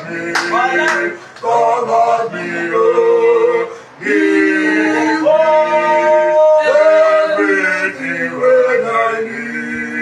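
A small group of voices singing a worship chorus together, holding long drawn-out notes, with no instruments heard. A couple of sharp smacks sound within the first second.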